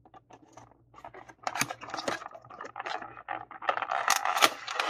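A cardboard trading-card starter-deck box being opened by hand, its flap scraping and the cards shifting inside. Scattered small clicks and scratches thicken into a steady rustle near the end.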